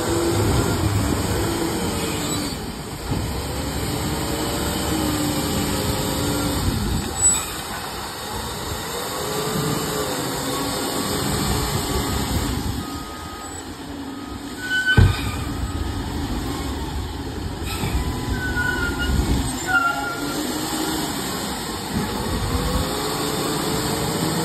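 A LiuGong 856H wheel loader's diesel engine revving up and down over and over as it lifts, dumps and drives. One sharp clank comes about fifteen seconds in, and a few brief high squeaks follow.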